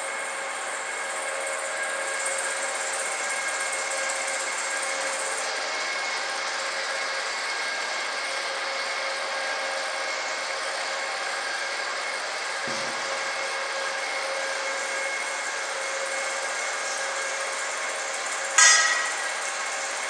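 Standing seam metal roofing roll forming machine running steadily, its motor and rollers giving a continuous whine with several steady tones. A single sharp, loud metallic clang rings out near the end.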